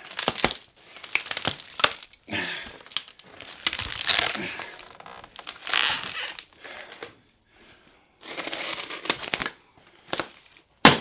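Cloth upholstery cover being pulled and ripped off a recliner's frame, in several noisy bursts with a few sharp clicks, and a sharp snap near the end.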